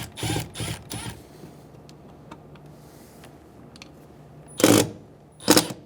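Phillips screwdriver backing screws out of a car door panel: scattered small clicks and scrapes, then two short, loud scraping rasps near the end.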